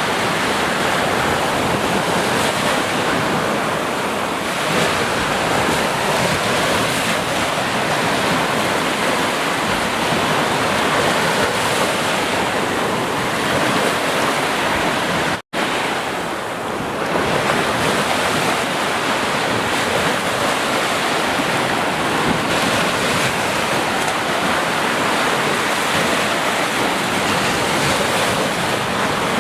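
Sea surf washing steadily, with a brief sudden dropout about halfway through.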